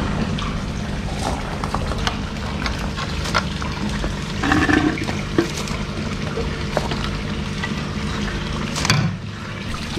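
Steady splashing of a koi pond waterfall, with a low hum underneath. A few short knocks of a plastic air-pump housing being set down into a concrete box, the clearest about halfway through.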